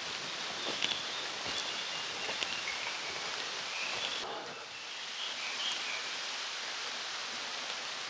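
Forest ambience: a steady hiss with faint, short, high chirps and a few small clicks and rustles.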